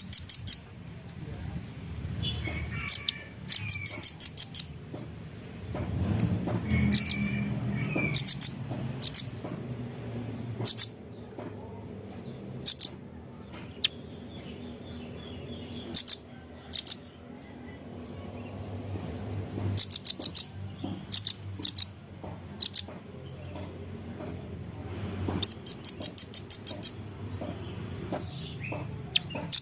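Velvet-fronted nuthatch calling: short runs of sharp, very high chips, about five to eight notes in quick succession, repeated every one to few seconds, with fainter twittering between the runs.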